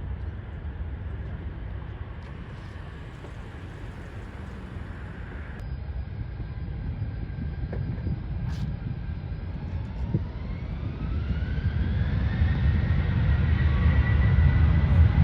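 Jet airliner engines: a low rumble, then about ten seconds in a whine that rises in pitch and levels off as the sound grows louder.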